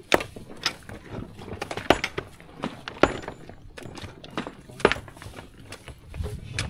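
Irregular sharp clacks of rock on rock, several loud ones about a second apart with fainter ones between, as stones are set into a dry-stone retaining wall.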